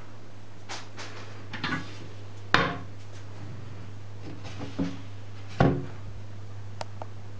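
A toilet creaking, a defect that appeared only three weeks after purchase: several short creaks, the loudest two about two and a half and five and a half seconds in, over a steady low hum.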